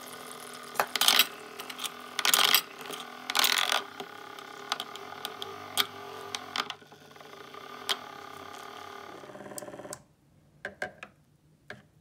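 Small electric motor of a mini beauty-blender and makeup-brush washing machine running steadily, spinning its tub of soapy water with a brush held in it. Several sharp plastic clacks and rattles sound over the drone, and the motor cuts off about ten seconds in.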